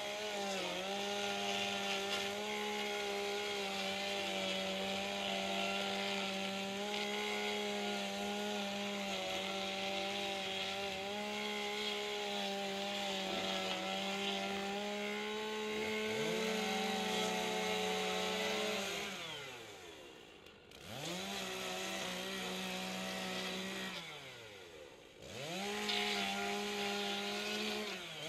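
Two chainsaws running at high revs, cutting through OSB roof sheathing. The engine note is steady for most of the time. About two-thirds of the way through, and again near the end, the revs fall away and then climb back as the throttle is let off and opened again.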